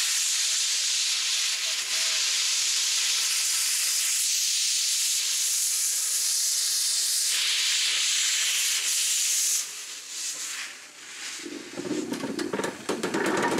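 LNER J27 steam locomotive's cylinder drain cocks blowing steam in a loud, steady hiss, which cuts off suddenly near ten seconds in. The engine then moves off past, with a lower rumble and rapid clicking and clanking from its wheels and motion.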